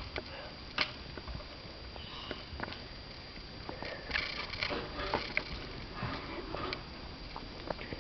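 A cat batting a cough drop across a hard floor: scattered light clicks and taps as the drop skitters and the paws land, with one sharp click about a second in and a busier flurry around the middle.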